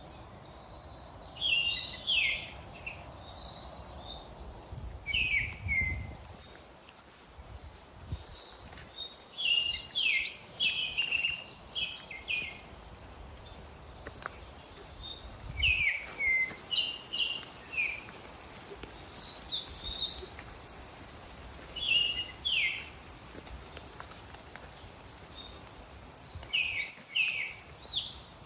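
Woodland birds singing, with short, high-pitched chirping phrases following one another throughout. A low rumble sits under the song for roughly the first six seconds.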